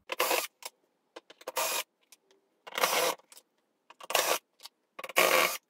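Cordless drill-driver running in about five short bursts, roughly one a second, backing screws out of a vacuum cleaner's housing.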